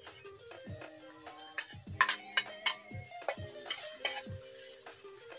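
Ginger, garlic and onion sautéing in a wok: a sizzle, with a spatula stirring and clanking against the wok, several sharp knocks about two seconds in. Background music with a repeating pattern plays underneath.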